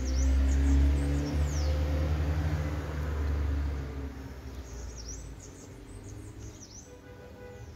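Small birds chirping in short high calls, near the start and again in the second half. A loud low steady drone, like a nearby engine running, fills the first four seconds and then fades away.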